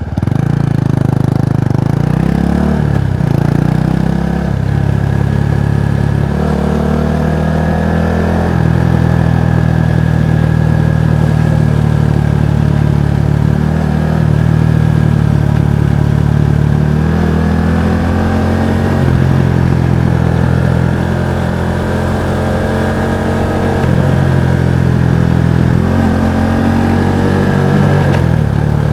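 Kawasaki Estrella's single-cylinder engine and exhaust while riding, with the engine note repeatedly climbing and dropping in pitch as the rider accelerates and shifts through the gears.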